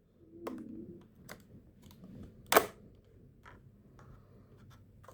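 A series of small, sharp clicks and taps from hands working inside an open laptop, releasing and pulling out its old RAM modules; the loudest click comes about two and a half seconds in.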